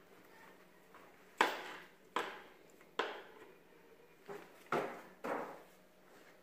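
Irregular knocks and clatters of paint cans and painting tools being handled on a floor, about six separate hits with short ringing tails.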